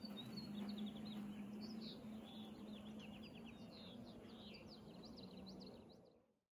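Electric robot golf trolley's drive motors humming steadily as it rolls along in tracking mode, following the walking golfer, with birds chirping and trilling throughout; everything fades out near the end.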